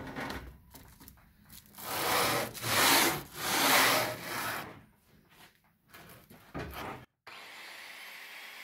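Angle grinder fitted with a hook-and-loop sanding disc, sanding the end grain of a wooden cutting board: the abrasive rasps across the wood in three loud surges in the middle, with lighter touches before and after. Shortly after 7 seconds the sound cuts off and a steady hiss follows.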